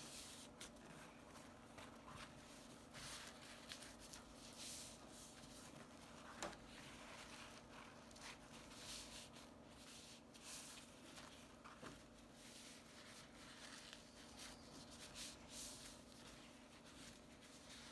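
Faint, scattered rustles and soft creases of a paper towel being folded back and forth, over a low steady hum.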